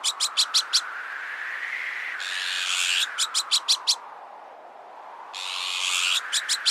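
Azure-winged magpie alarm calls, each a harsh rasp followed by five or six quick sharp notes, repeating about every three seconds. Underneath runs a whistling strong-wind sound that rises and falls in pitch.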